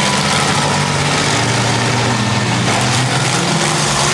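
Engines of six-cylinder demolition derby cars running together in a steady, loud drone.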